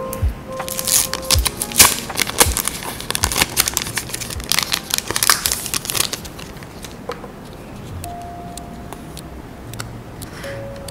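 A paper photocard sleeve and a clear plastic bag crinkling and rustling as they are unwrapped by hand, busiest in the first half and thinning out as the cards are slid out. Background music plays underneath.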